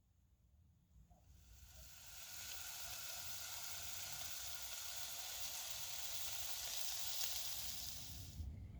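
Food sizzling in a hot pan, a steady hiss that swells in about a second in and cuts off abruptly near the end.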